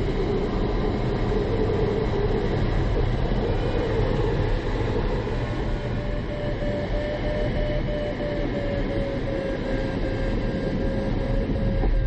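Steady rush of air past an ASW 20B sailplane's cockpit in flight. About halfway through, a steady high tone joins it and sinks a little in pitch.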